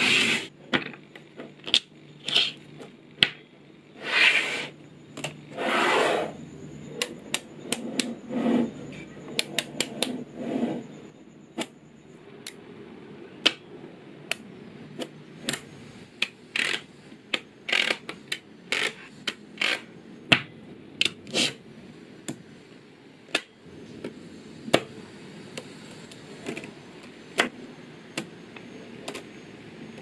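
Small neodymium magnet balls clicking as they snap against each other, in irregular sharp ticks, with a few longer rattling slides as rows and sheets of balls are pushed and reshaped by hand.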